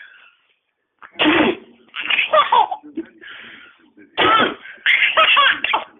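A baby girl laughing in a string of bursts, mixed with coughs, starting about a second in.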